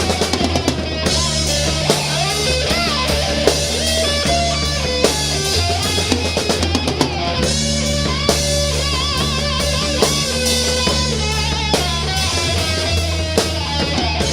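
Rock music with a drum kit, a steady bass line and electric guitar.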